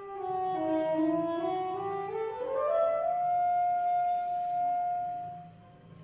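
Background music: a single instrument plays a slow melody that dips, then climbs step by step to a long held high note, which fades out near the end.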